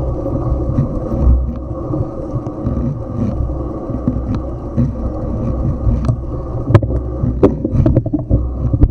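Muffled, steady rumble of an action camera being carried along a trail, with irregular sharp knocks and clicks, several of them close together in the second half.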